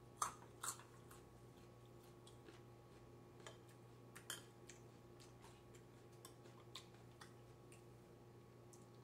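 Light clicks and taps of chopsticks and a metal spoon against ceramic bowls during a meal, the two sharpest near the start and another pair about four seconds in, over a faint steady hum.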